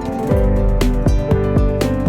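Background music with a steady beat of about two strokes a second under sustained melodic notes.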